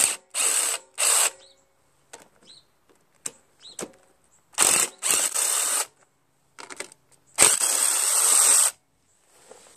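Cordless power driver with a socket extension spinning out 10 mm bolts from a Honda mower engine's air cleaner base. It runs in short bursts: several in the first second or so, two more around the middle, and one longer run near the end, with small clicks of the socket and bolts in between.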